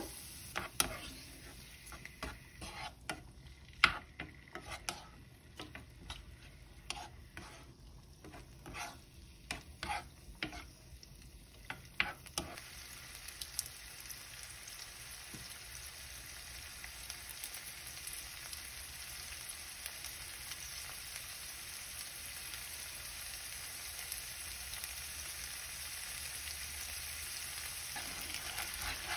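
Food sizzling in a frying pan, with a utensil clicking and scraping against the pan through roughly the first twelve seconds. After that there is a steady sizzle that grows slightly louder near the end.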